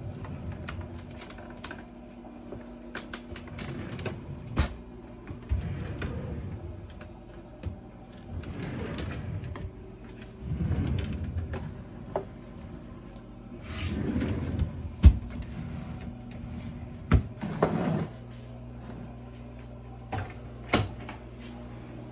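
Kitchen cabinet drawers being slid open and pushed shut one after another: several second-long sliding rumbles and a few sharp knocks as they close, over a faint steady low hum.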